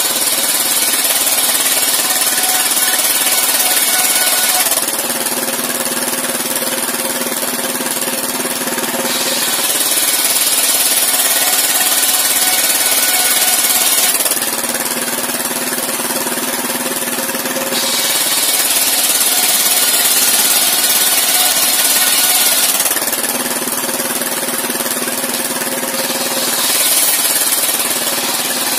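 Engine-driven circular sawmill ripping planks. The big blade cuts through the wood with a loud, high rushing hiss in repeated cuts of about five seconds, several seconds apart. Between cuts the blade spins free and the engine runs steadily.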